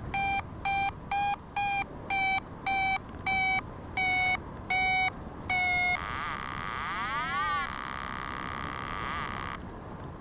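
Paragliding variometer beeping its climb tone: short pitched beeps about two a second, slowing and dropping slightly in pitch, which signals weakening lift, until they stop about six seconds in. A hiss with wavering, sweeping tones follows and fades near the end.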